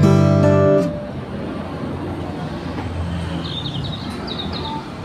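Strummed acoustic guitar background music: a chord rings for the first second, then a quieter stretch of faint hiss with a few short, high chirps near the middle.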